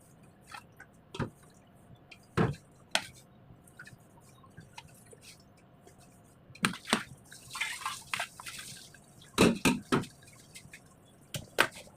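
Scattered light clicks and taps, with a brief patch of rustling and quick clicks about seven to eight seconds in.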